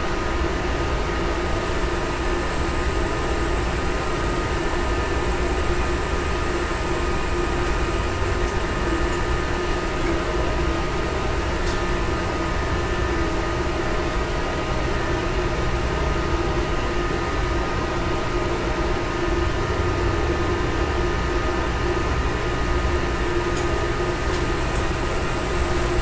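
Axpert-type 3 kVA hybrid inverter running on battery power under load, heard from about three metres away through a closed door: a steady hum with a few held tones over a noisy bed. A high, thin hiss of night insects comes in about a second in, fades out and returns near the end.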